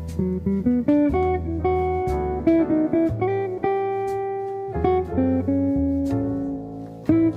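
Background music: a plucked guitar playing a melody over a bass line.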